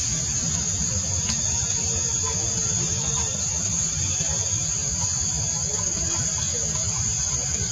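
Steady, continuous high-pitched insect chorus in forest canopy, with a low rumble underneath.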